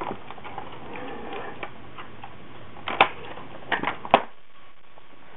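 Clicks and knocks of plastic airsoft guns being handled: a few soft clicks, a sharp click about three seconds in, then a cluster of clicks with the loudest just after four seconds.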